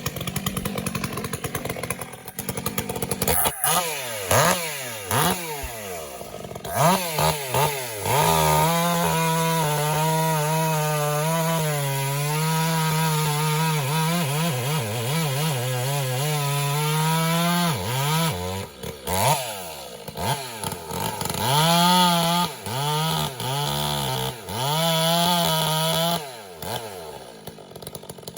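Two-stroke chainsaw revved in several short bursts, then held at full throttle for about ten seconds while cutting wood, its pitch dipping and recovering under load. More short bursts of throttle follow before it drops back to idle near the end.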